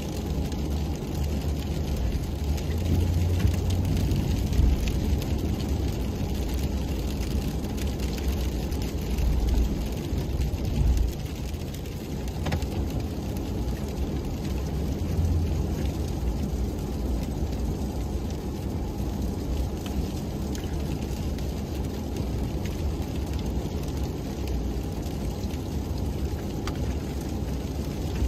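Pickup truck with a snowplow driving, heard from inside the cab as a steady low rumble that swells a few times in the first eleven seconds, with wet sleet ticking on the windshield.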